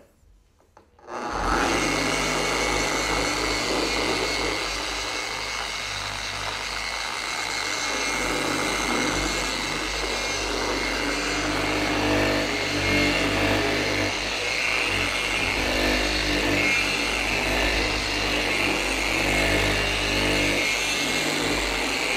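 Rupes random-orbital polisher starting about a second in and running steadily, buffing the car's painted hood with a microfiber cutting pad to take out swirl marks.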